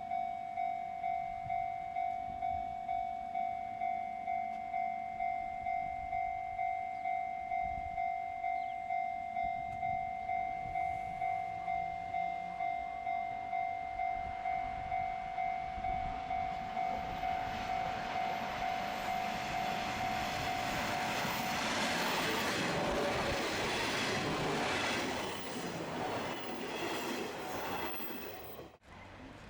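Japanese level-crossing warning bell ringing steadily about twice a second while a train approaches and passes, the rumble of its wheels on the rails growing louder. The bell stops about two-thirds of the way through as the train noise is loudest, and everything cuts off abruptly near the end.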